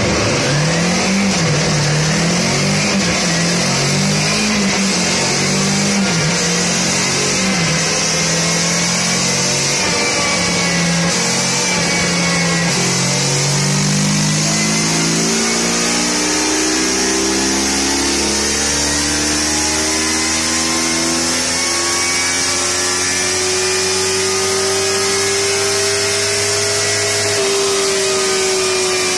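Kawasaki Versys-X 300's 296 cc parallel-twin engine on a chassis dyno: first revved up and down in short blips, then pulled through a long, steady climb in revs under load on the dyno roller, easing off slightly near the end. A steady high-pitched hiss runs underneath.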